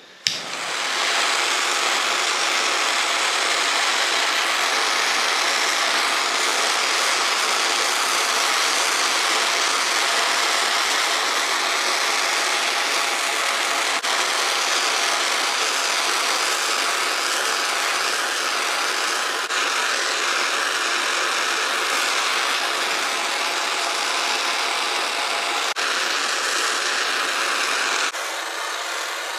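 Handheld gas torch burning with a steady hiss, its blue flame held on a titanium exhaust header pipe to heat-colour it. The hiss starts abruptly and drops a little in level near the end.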